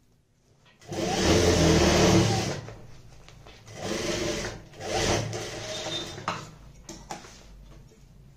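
Industrial sewing machine stitching through layered fabric in short runs: a longer run starting about a second in, then two shorter runs with brief stops between.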